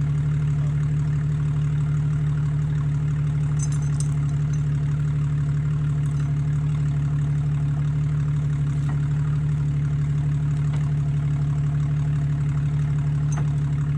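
Jeep Wrangler engine idling steadily.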